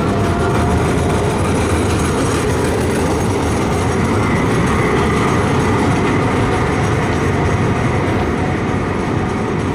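Eurotram low-floor tram running on street track: a steady rumble of wheels on rail with faint high whining tones over it.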